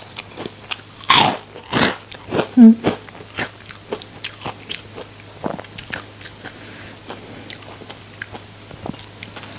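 Close-up crunching bites and chewing of crispy deep-fried small sea fish full of roe. The crunches come thick and loud over the first three seconds, with a short low hum of the voice about two and a half seconds in, then settle into softer, sparser chewing.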